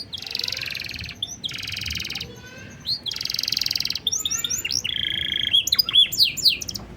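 Domestic canary singing a long, varied song: loud blocks of rapid buzzy trills alternating with quick repeated whistled sweeps, stopping just before the end.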